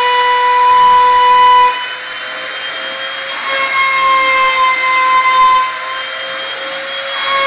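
Home-made CNC router running as it carves, a steady high-pitched whine whose pitch shifts slightly now and then as the machine moves. It is louder for the first couple of seconds, then drops a little.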